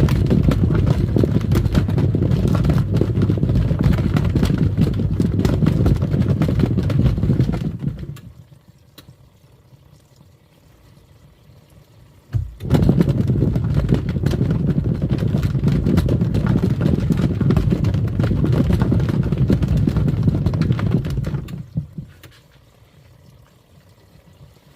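Twin-tub washing machine's wash tub running and churning foamy water. It stops about eight seconds in, starts again about four seconds later, and stops again a few seconds before the end.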